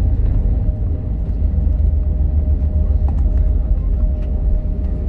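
Airbus A321neo rolling down the runway just after landing, heard from inside the cabin over the wing: a steady, heavy rumble of the wheels and engines, with a faint steady hum above it.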